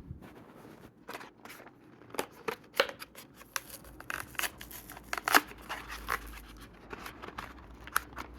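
A Matchbox die-cast car's plastic blister and card backing being cut and prised open: an uneven run of sharp snips, clicks and plastic crinkling.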